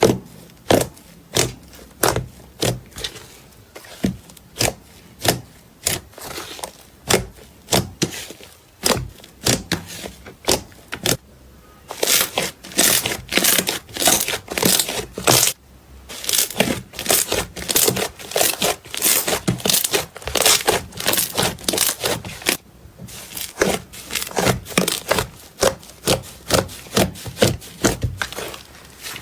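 Slime being squeezed and poked by hand, making sharp pops and clicks about twice a second, which turn into denser, louder crackling about twelve seconds in, with two brief pauses.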